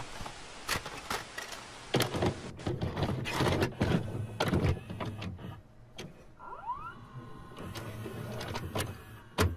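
Mechanical clicks, clunks and motor whirring of a VCR loading and starting a videotape, with a short rising whine about seven seconds in.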